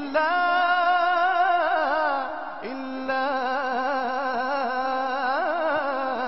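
A man singing an Arabic devotional praise song (madih) without words, drawing the phrase out into a long, wavering melisma. He breaks for breath about two and a half seconds in, and through the second half a steady lower note is held beneath the melody.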